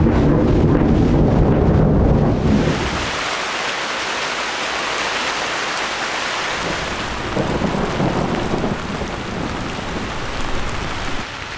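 Thunder rumbling loudly for the first two to three seconds, like a building collapsing, then a heavy downpour of rain hissing steadily. A fainter low rumble comes back briefly about eight seconds in.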